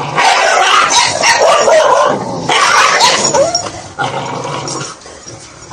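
Dog yelping and whimpering in a fight with a rooster, amid noisy flurries of flapping and scuffling. There are two loud flurries, then it eases off near the end.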